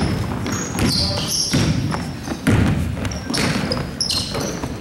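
Sounds of a youth basketball game in a gym: sneakers squeaking on the court, the ball bouncing, and crowd voices.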